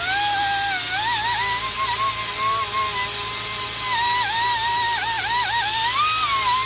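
Ingersoll Rand angle grinder running against the edge of a used wheel hub, grinding off corrosion so the surface sits flush. A steady high hiss sits under a whine that sags and recovers several times as the tool is pressed into the metal.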